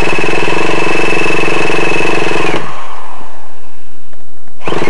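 A small engine running at a steady high speed with a high whine over its drone. It cuts off abruptly about two and a half seconds in and starts again suddenly near the end.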